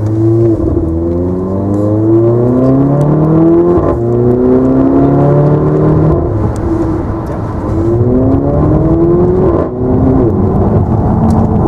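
Mercedes-AMG GLA 45's turbocharged 2.0-litre four-cylinder engine, heard from inside the cabin, accelerating hard. Its pitch climbs through the revs and falls back at each gear change, most sharply about four seconds in and again near the end.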